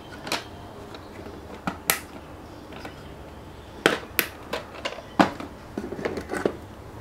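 Handling clatter: wooden pencils clicking into a clear plastic pencil case, the plastic lid snapping shut and the case knocking down onto the drawer bottom. A string of separate sharp clicks and knocks, busiest about four to six seconds in.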